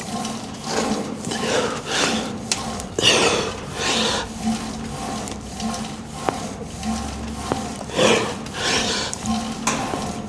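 A lifter's heavy, forceful breathing under effort during a set of upright rows: repeated noisy breaths in and out, roughly one a second.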